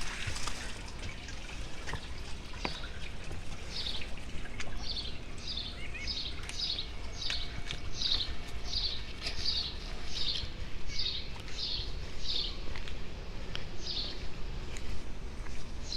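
A songbird calling one high note over and over, each note slurring downward, about two a second, in a long series that starts a few seconds in and breaks off briefly near the end.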